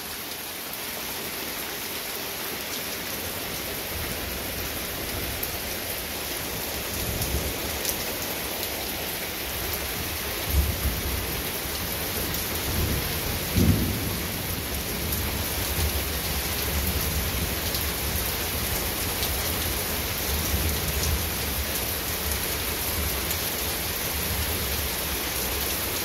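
Heavy rain falling steadily in a downpour, with low rolling thunder rumbling under it through most of the stretch. Two brief louder thumps stand out, about ten and fourteen seconds in.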